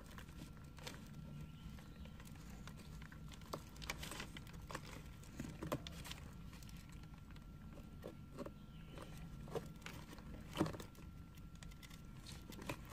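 Young sulcata tortoises eating carrot pieces on newspaper: irregular crunching bites, with scratches and crinkles of their claws and legs on the paper. One louder crack comes about ten and a half seconds in.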